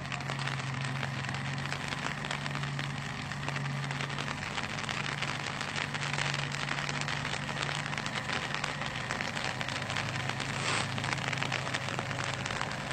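Steady, finely crackling hiss of water, with a distant truck engine's low, even hum underneath.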